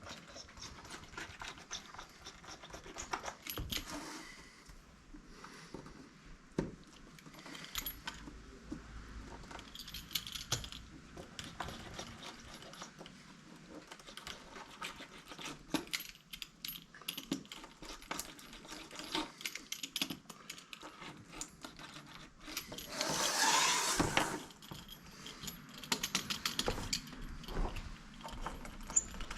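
Hands working a window screen: scattered clicks, taps and light rattling as the mesh is pulled tight and the rubber spline is pressed into the frame's track, with a louder rustling scrape about three quarters of the way through.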